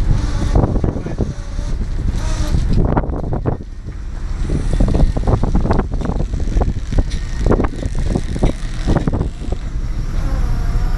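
Wind buffeting the microphone on a fishing boat's open deck over the low, steady running of the boat's engine, with irregular knocks and thuds throughout.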